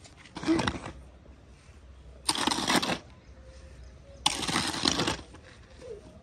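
Shovel blade scraping along brick paving as it turns a pile of dry cement-and-sand mix, three gritty strokes about two seconds apart.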